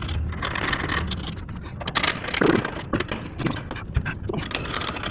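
Irregular clicks, knocks, scrapes and rattles of hardware being handled, over a steady noisy background.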